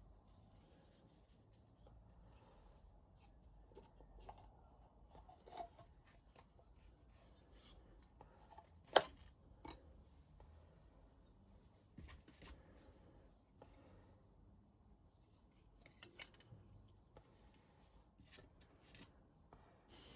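Quiet workshop handling: scattered light clicks and taps of wood and tools being picked up and set down, with faint scratching, like pencil marking. The sharpest tap comes about nine seconds in.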